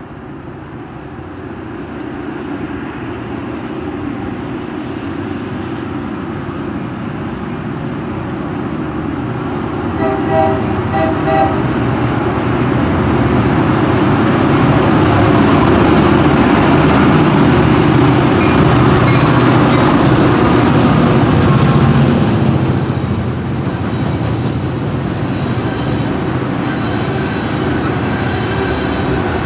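A train approaching and passing, its rumble building over the first ten seconds. About ten seconds in it sounds a few short horn blasts, then it is loudest as it goes by before easing off near the end.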